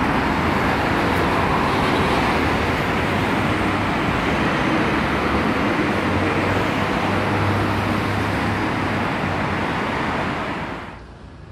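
Steady road traffic noise from a busy multi-lane city street, with cars and buses passing. It falls away sharply near the end.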